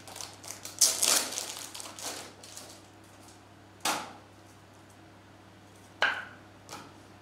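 Trading-card packaging and hard plastic card cases being handled on a desk: a crinkly rustle for about two seconds, then two sharp plastic clacks about four and six seconds in.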